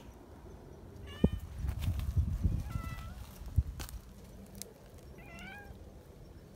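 Domestic cats meowing: three short meows, about a second in, around three seconds and near five and a half seconds. Two sharp knocks and a low rumble run under the first half.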